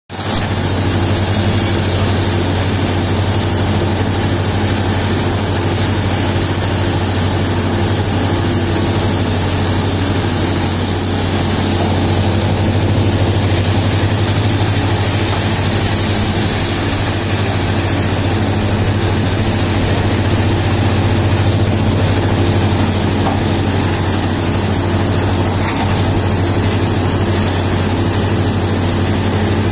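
Heavy diesel engine of a large crawler hydraulic excavator running steadily under load while it digs and dumps, a deep hum swelling slightly twice. A thin high whine wavers in pitch above it.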